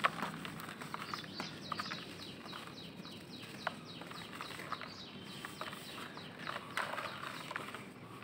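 Dry dirt clods crushed and crumbled by hands in a plastic bucket: gritty crackling and a soft trickle of falling dust, with a sharp crack right at the start and a denser crumbling burst near the end. A bird chirps in the background in a quick run of short falling notes from about a second in until past the middle.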